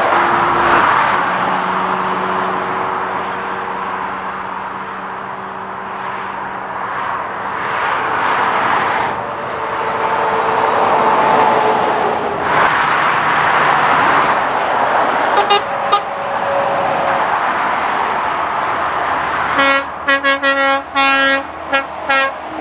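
Lorries and cars passing at speed on a dual carriageway, with tyre roar and engine drone. A passing lorry's horn gives a couple of short toots about fifteen seconds in, then a rapid run of toots near the end.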